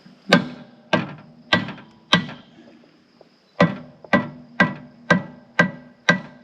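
Hammer blows knocking a metal sawmill part into place, each strike ringing metallically: four blows, a short pause, then six more at about two a second. A hard hammer on bare metal rather than a rubber mallet.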